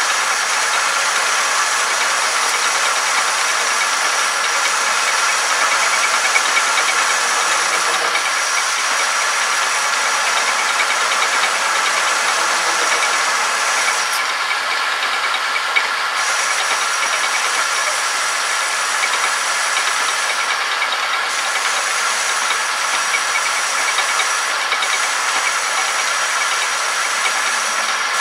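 Homemade metal lathe running, its turning tool taking a cut on a spinning shaft: a steady hiss with several steady mechanical tones, and a high ringing tone that cuts out briefly three times.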